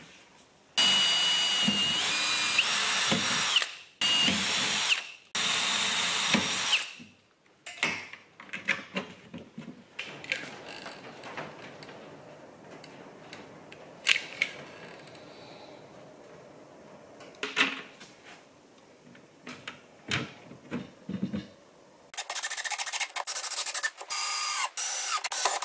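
A power tool whines in three runs of a few seconds each, then come quiet scattered clicks and knocks of a caulking gun and hand work. About 22 seconds in, a cordless drill drives screws in short loud runs, fastening a hatch to a plastic live-well tub.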